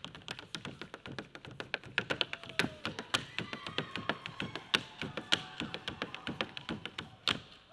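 Tap shoes striking a stage floor in unaccompanied solo tap dancing: a fast, irregular run of sharp taps, several a second.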